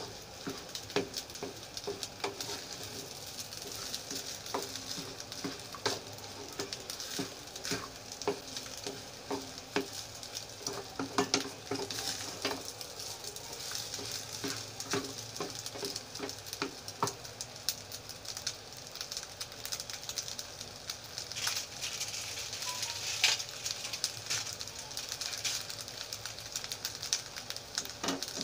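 Rice mixed with egg sizzling in hot oil in a small metal saucepan on a gas stove, while a wooden spatula scrapes and knocks against the pan as it is stirred. The knocks grow sparse over the last ten seconds or so, while the sizzling goes on.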